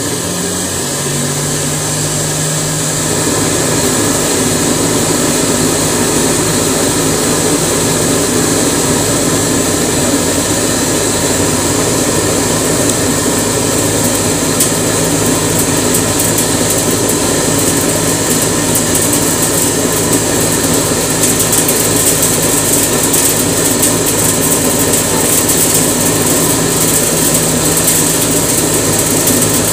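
Cotton candy machine running with its motor at full speed: a steady hum from the spinning heated sugar head, with a hiss over it that grows louder in the second half.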